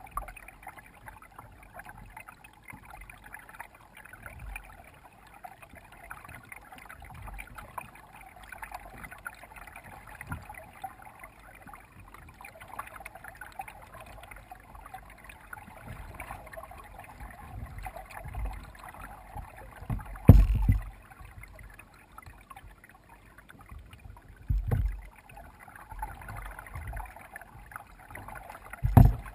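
Kayak being paddled through calm water: a steady splashing and trickling of paddle strokes and water along the hull. Three dull, low thumps in the second half, the loudest about two-thirds of the way through.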